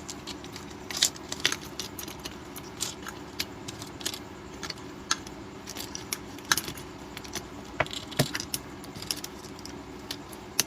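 Irregular small clicks, taps and light metallic jingles of tools and phone parts handled on a repair bench while the phone's connectors are being reconnected, over a steady low hum.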